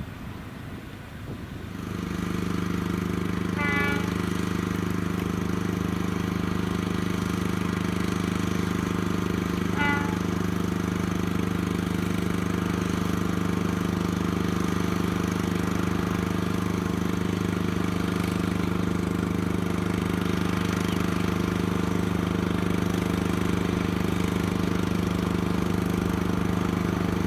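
Diesel train engine idling steadily, cutting in sharply about two seconds in, with two brief high-pitched tones about four and ten seconds in.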